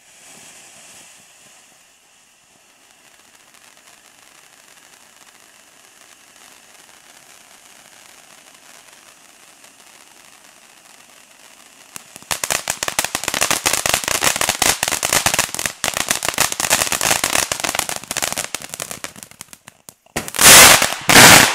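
Weco Yang firework fountain hissing steadily as it sprays sparks, then about twelve seconds in a dense, loud crackling sets in for several seconds. Near the end come two short blasts, much louder than the rest.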